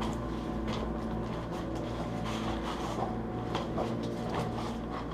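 Footsteps and scuffs over rubble and loose planks on a concrete floor, irregular steps about every half second, over a steady low drone.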